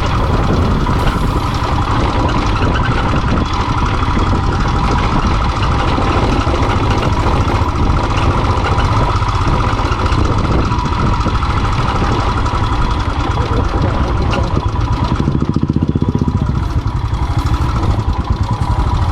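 Royal Enfield single-cylinder motorcycle engine running while being ridden on a rough off-road trail. Its beat grows more distinct about fifteen seconds in.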